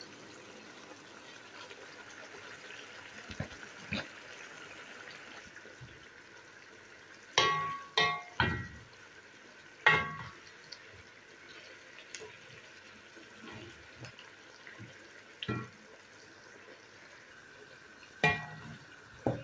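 Chopped endive, red kuri squash and chicken frying in oil in a pan with a faint, steady sizzle. A few sharp, ringing clinks cut through: three in quick succession about seven seconds in, then single ones later.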